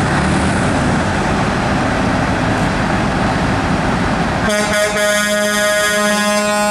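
Heavy trucks' engines running in a noisy rumble. About two-thirds of the way through, a truck air horn starts a long, steady blast.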